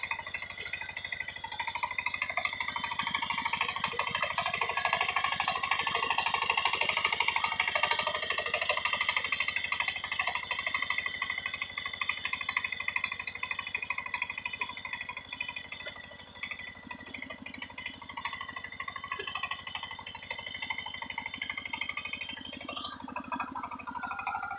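Kamco power tiller's single-cylinder diesel engine running steadily with a fast, even chug while its rotary tines churn wet paddy mud, with a brief rising whine near the end.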